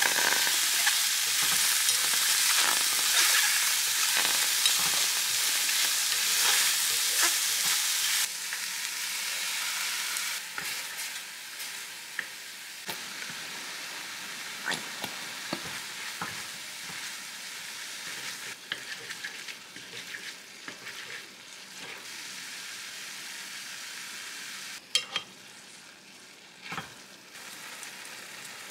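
Tofu and sliced green onions frying in a pan: a loud steady sizzle for the first several seconds, then quieter sizzling broken by scattered light clicks and taps.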